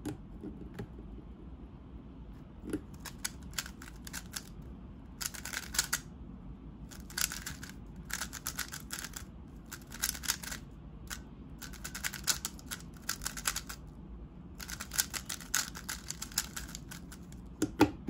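Plastic 3x3 speedcube being turned fast in a timed solve: bursts of rapid clicking turns about a second long, broken by short pauses. Near the end comes a knock as the hands slap down on the stackmat timer to stop it.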